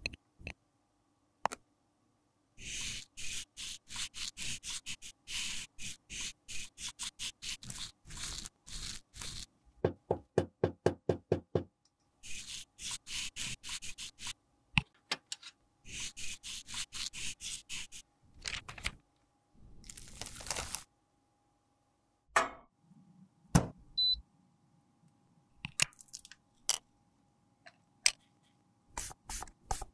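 Brush bristles scraping and sweeping crumbled pressed powder in a plastic compact, in quick rhythmic strokes with a heavier run partway through. Later come scattered sharp knocks and clicks of tools and the metal pan against the case.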